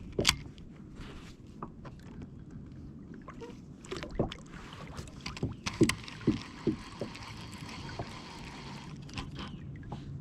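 Knocks and small clicks on a kayak, with water lapping at the hull and a low steady rumble; a soft hiss comes in a little past the middle and stops near the end.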